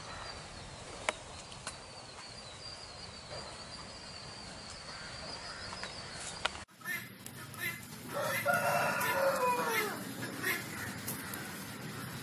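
A rooster crowing once, a single call of about two seconds that drops in pitch at the end. Before it, a faint steady high-pitched tone over light background noise.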